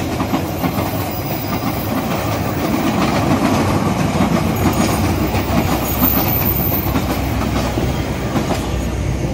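Passenger train coaches rolling past close by, the wheels clattering steadily over the rail joints with a continuous rumble.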